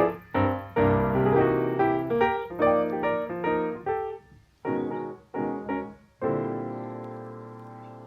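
Piano music: a run of struck notes and chords, a brief pause, three short chords, then a final chord held and slowly fading.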